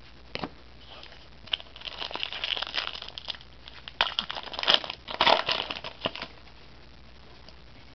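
Trading card pack wrapper crinkling and crackling as the pack is opened and the wrapper handled, loudest a little before the end, then stopping.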